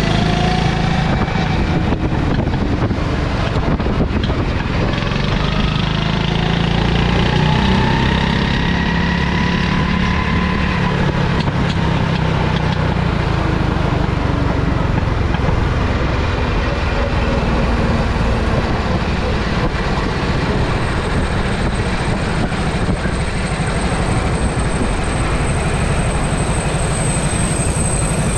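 Go-kart engine running at speed, heard from the driver's seat, its pitch rising and falling with the throttle through the corners.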